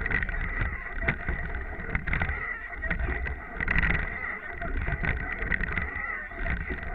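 Racing rowing eight under way, heard from a camera on its bow: water washing along the hull, with a sharp knock about once a second from the rowing stroke.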